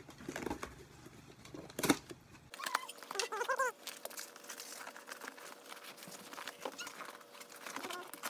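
Cardboard being cut with a utility knife and handled as it is folded into a box: scraping, crinkling and scattered sharp clicks. A louder click comes about two seconds in, and a short wavering squeak about a second later.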